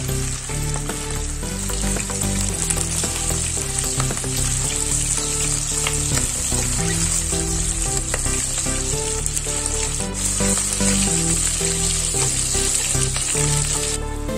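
Boiled mutton chops sizzling steadily as they fry in hot oil in a kadai, turned over now and then with a slotted metal spoon.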